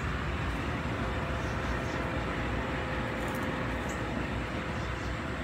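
Steady outdoor background noise: a low rumble under an even hiss, with a faint steady hum and no distinct events.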